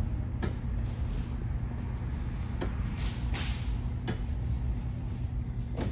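Recorded fireworks from a store demo video played over speakers: a few sharp pops and a crackling hiss about three seconds in, over a steady low rumble.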